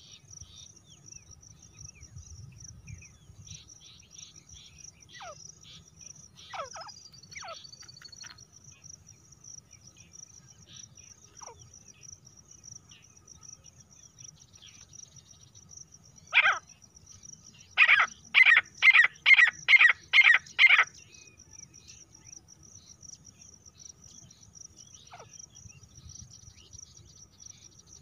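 Female grey francolin calling: one loud call, then a quick run of about seven loud calls, two or so a second, after a few faint calls. Crickets chirr steadily behind it.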